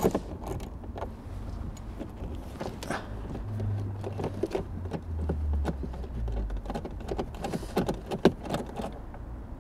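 Irregular clicks and metallic knocks of a socket wrench on a long extension being worked on a hidden 10 mm bolt down inside a car dashboard, over a low rumble.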